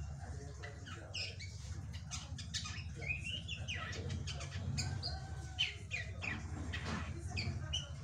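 Juvenile caged drongo (srigunting) singing a quick, varied run of short chirps and gliding whistles, over a steady low hum.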